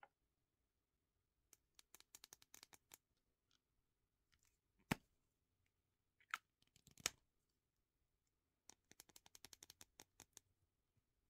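Quiet fingernail tapping and handling of small skincare bottles: two runs of quick, light clicks from long nails on the bottles, with a few single sharper knocks as a bottle and its cap are handled, the loudest about seven seconds in.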